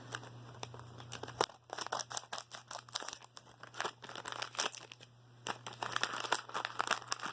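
A blind-bag toy package being cut open with scissors and pulled apart: irregular crinkling and tearing of the packaging, with a short lull about five seconds in.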